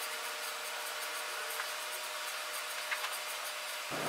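Steady hiss with almost no low end, and two faint ticks.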